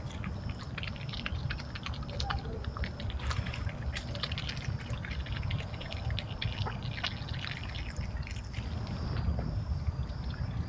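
Raccoon feeding from a dish of chicken: a run of small irregular clicks and crunches of chewing and picking at the food. A gray fox comes to the dish near the end. Under it all runs a steady low hum.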